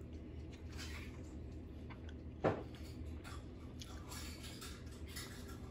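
Soft, faint wet rustling and small clicks of blanched leafy greens being handled and lifted off a plate, with one brief louder sound, falling in pitch, about halfway through.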